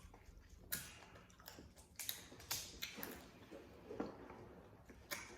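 Faint eating sounds from a seafood meal: irregular sharp clicks and cracks, about eight in five seconds, over a low room hum.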